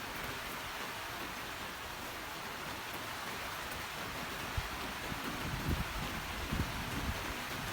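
Steady rain falling, an even hiss. In the second half a handful of short, low thumps break in.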